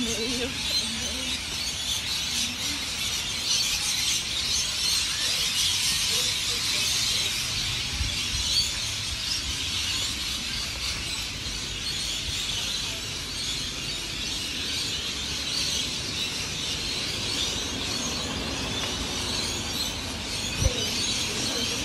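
A large flock of birds chattering and calling all at once in a dense, unbroken din. Two brief low knocks sound partway through, the sharper one near the end.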